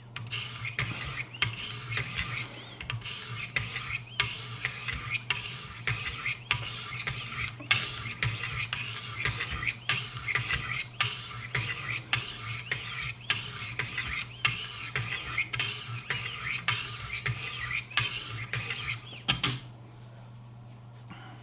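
Wicked Edge guided sharpener's 400-grit abrasives stroked rapidly along the steel blade of a Benchmade 725 Kodiak Skinner, a quick run of rasping strokes that stops shortly before the end.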